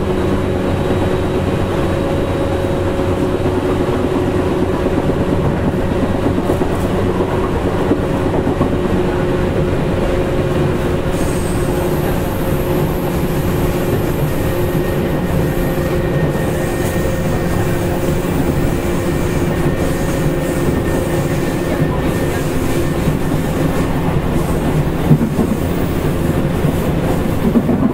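A Tokyu 8500 series electric train running at speed, heard from inside a motor car. The wheels rumble steadily on the rail under a steady motor and gear hum, which fades away near the end.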